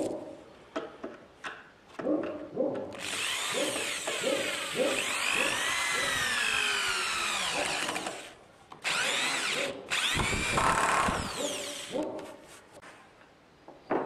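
Cordless drill working into the corner joint of a wooden frame, running in three bursts with short pauses between, its motor whine sweeping up and down in pitch. It is preceded by a series of short pitched notes about twice a second.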